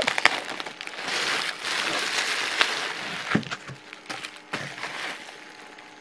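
Plastic packaging and wrapping crinkling and rustling as it is handled and pulled out of a cardboard shipping box, with many sharp crackles. It is busiest in the first three seconds, then thins to scattered crackles that taper off.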